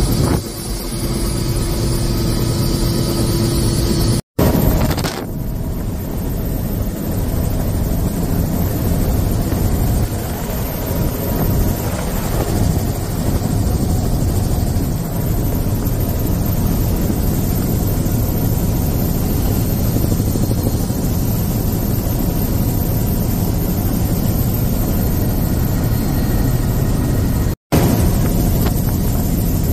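Tour helicopter's engine and rotor noise heard from inside the cabin, a steady loud drone, cut off for an instant twice.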